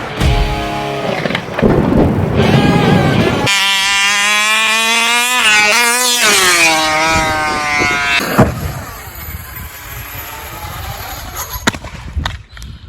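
RC car running at speed. Its drive sets up a strong, steady high whine from about three seconds in, which climbs slightly and then drops before cutting out. Quieter running noise follows, with a sharp crack near the end.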